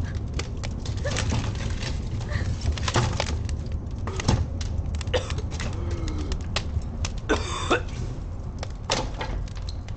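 A burning house fire crackling: a stream of irregular pops and clicks over a steady low rumble, with one louder burst of noise about seven seconds in.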